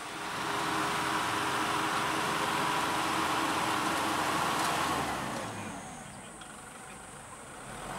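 Kubota SL60A robot tractor's diesel engine running while it works a rotary tiller through the soil; the noise is loud for about five seconds, then drops off.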